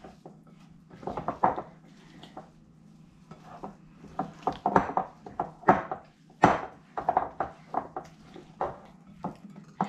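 Hands mixing beer bread dough in a glass mixing bowl, with irregular clicks and knocks against the glass.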